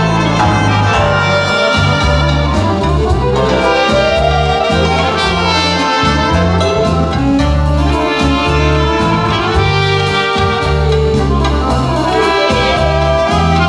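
A live band playing loudly: brass horns carry the melody over a drum kit and bass, with held notes and rising slides.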